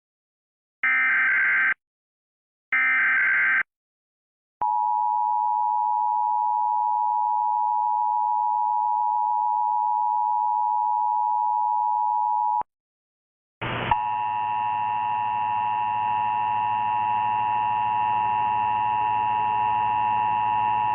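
Emergency Alert System test. Two short screeching data bursts of the EAS header end, then the EAS attention signal sounds: a steady two-tone beep held for about eight seconds. After a brief pause a second, noisier run of the same kind of steady tone begins, with a hum and hiss under it.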